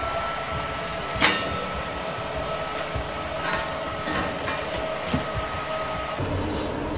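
Smeg oven's convection fan running with a steady whirring hum and a thin whine, which stops about six seconds in. A sharp metallic clink about a second in, with a few lighter clinks after.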